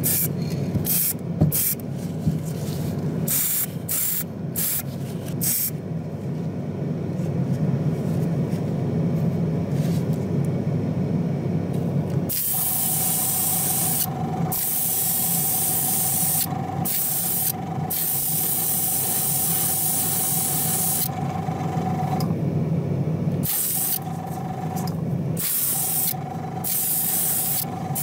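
Small gravity-feed spray gun spraying paint: a loud hiss with a steady whistling tone, cut off and restarted several times as the trigger is released and pulled, from about halfway on. Before that only short, broken bursts of hiss; a steady low hum runs underneath throughout.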